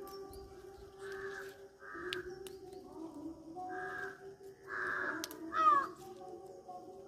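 Crow cawing about five times, with short harsh calls; the loudest call comes near the end.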